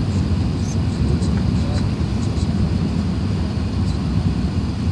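Steady low rumble inside the cabin of an Airbus A380-800 in flight: engine and airflow noise heard from a window seat, with a few faint light clicks.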